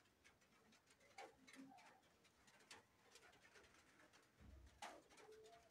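Near silence: faint room tone with scattered soft clicks and rustles, a few faint dove-like coos, and a soft low thump about four and a half seconds in.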